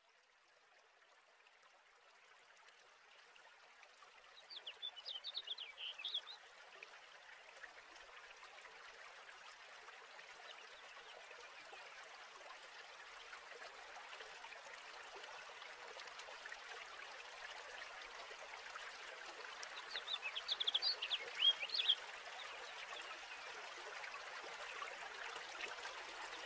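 A bird chirping in two short quick bursts, about five seconds in and again about twenty seconds in, over a faint steady hiss like running water that slowly grows louder.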